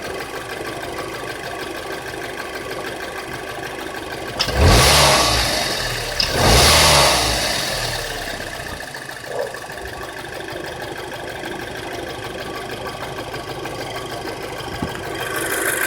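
Audi A4 B7's 2.0 TFSI turbocharged four-cylinder petrol engine idling, revved twice in quick succession about four and a half and six seconds in, then settling back to idle. The owner is asking what causes a ticking noise from this engine.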